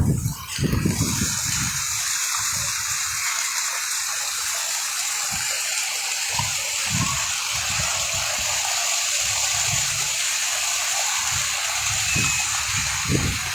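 Heavy rain falling, a steady even hiss, with occasional low thuds underneath.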